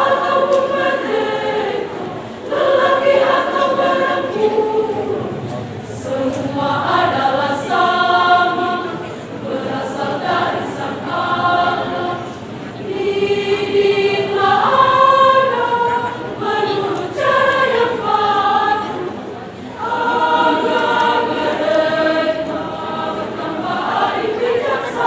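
Women's choir singing in long phrases that swell and ease off every few seconds.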